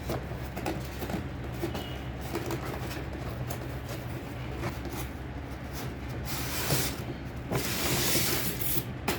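Packaging being handled and opened: rubbing, rustling and scattered clicks, with two longer scraping, rustling stretches, one about six and a half seconds in and one around eight seconds, over a steady low hum.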